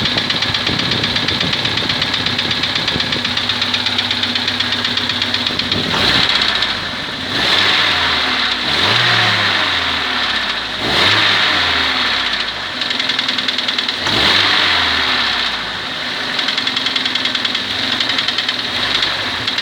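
ZMZ-409 Euro-2 four-cylinder petrol engine idling with a rapid, regular knock, revved briefly about four times in the middle and dropping back to idle. The cause of the knock is unknown to the owner, who is sure it is not the hydraulic lifters.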